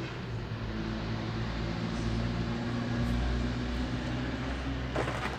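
Steady low rumble and hum of outdoor background noise.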